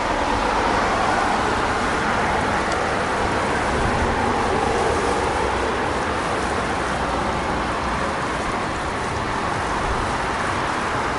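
Steady rushing outdoor noise of distant road traffic and wind, with no thunder heard.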